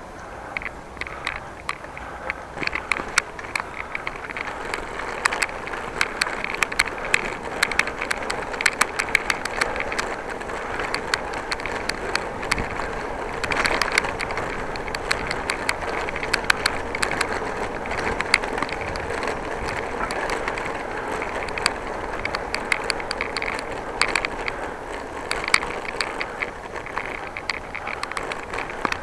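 A bicycle being ridden: steady tyre and road noise with frequent, irregular clicks and rattles from the moving bike.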